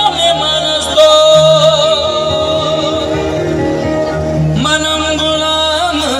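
Live bhajan music through a PA system, with long held melodic notes over steady backing; the note changes about four and a half seconds in.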